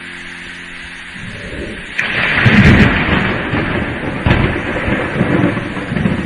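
Thunderclap over heavy rain: a low rumble builds about a second in, breaks into a loud crack at about two seconds, and keeps rolling in low rumbles with another peak a couple of seconds later.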